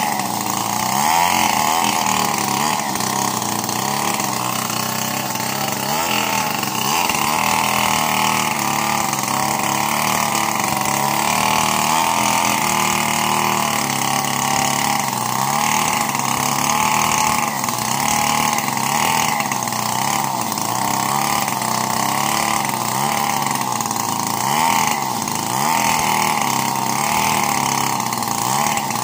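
Two-stroke chainsaw running under load as it rip-cuts along the length of a large timber beam, its engine pitch rising and falling over and over.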